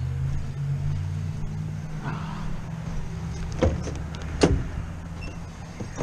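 A low, steady hum of an idling vehicle, then two sharp clacks under a second apart as the service van's door is unlatched and opened, the second one louder.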